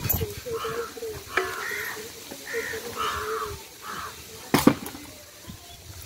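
Crows cawing several times, with a single sharp knock about four and a half seconds in.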